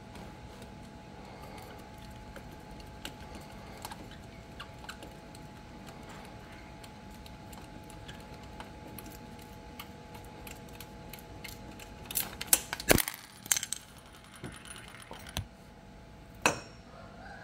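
Small metal parts or hand tools being handled against the scooter's engine casing: faint scattered clicks, then a quick cluster of sharp metallic clinks about twelve seconds in, and two more single clinks near the end.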